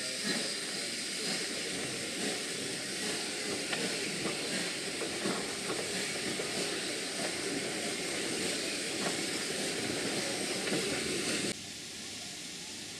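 Steam locomotive hauling a train, heard from a carriage window: a steady hiss of steam over the run of the train, with occasional faint clicks. It drops suddenly to a quieter steady sound near the end.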